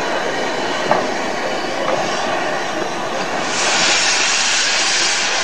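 Great Western tender steam locomotive running along the track with a steady rush of noise. About three and a half seconds in, a loud hiss of steam starts and continues.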